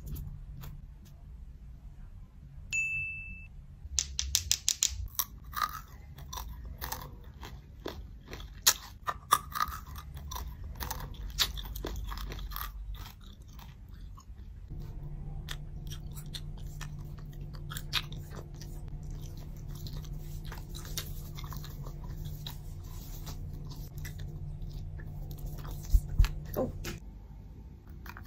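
Close-up eating sounds: biting, chewing and crunching as a frosted doughnut and sweets are eaten. A short bright ding comes about three seconds in, and a steady low hum runs under the second half.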